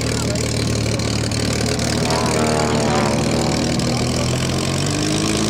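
Supermarine Spitfire Mk XVI's Packard-built Merlin V12 engine running at low taxiing power, propeller turning, as the fighter rolls past close by. About two seconds in, its pitch slides downward as it goes by.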